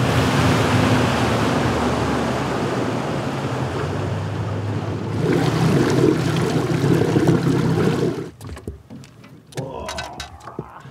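Suzuki outboard motor running at speed, with wind and water rushing past the boat underway. About eight seconds in it gives way to much quieter sound with scattered small knocks.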